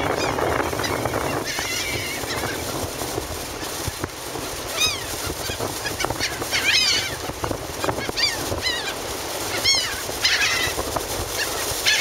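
A flock of laughing gulls calling, with short rising-and-falling cries coming in scattered bunches from about five seconds in, over a steady rush of wind and surf.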